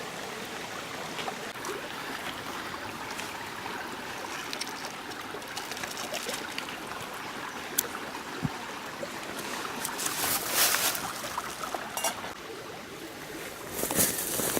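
Stream water flowing and trickling steadily, with a few brief louder noises around ten seconds in and near the end.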